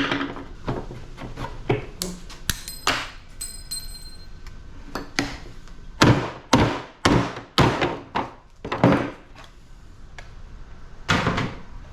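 Irregular metal knocks and clanks of hand tools on air-conditioner parts being taken apart for scrap, a string of sharp impacts bunched around six to nine seconds in, with a brief metallic ring about three seconds in.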